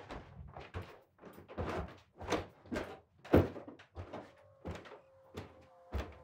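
Footsteps knocking on a wooden staircase and floorboards, irregular thuds about two a second with a louder knock about three and a half seconds in. A faint, steady high tone comes in after about four seconds, sinking slightly in pitch.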